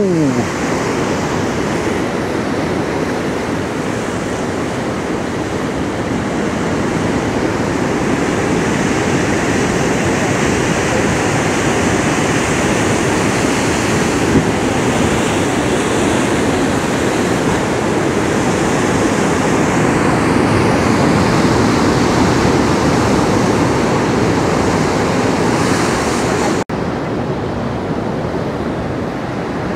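Steady rush of ocean surf mixed with wind buffeting the microphone. It drops out for an instant near the end.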